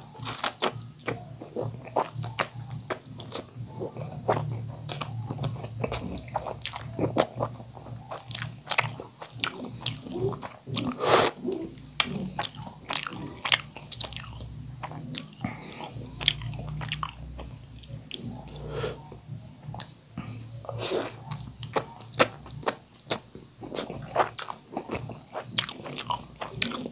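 Close-miked mouth sounds of eating spicy noodle soup: wet chewing and lip smacking, many quick clicks, with a few louder slurps of noodles along the way.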